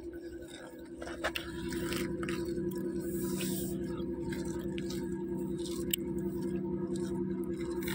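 Gray langurs chewing and crunching cabbage leaves, with short crisp clicks. Under them runs a steady low hum.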